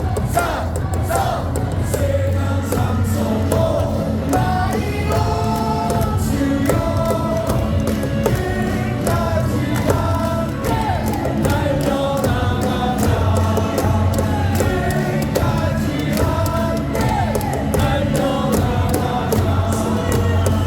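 Baseball stadium crowd singing a cheer song in unison over amplified music, with rhythmic clapping throughout.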